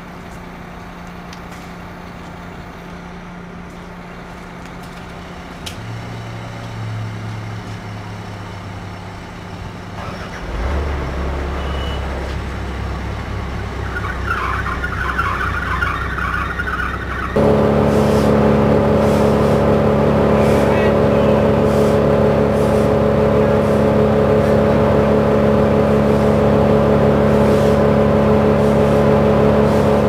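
A truck crane's engine runs steadily at low speed. At about 17 seconds it jumps abruptly to a much louder, steady higher-speed running that holds to the end, as the crane works a lifted section of the pine.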